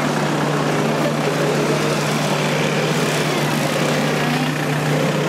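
Murmur of a crowd standing in a street, with scattered faint voices over a steady droning noise.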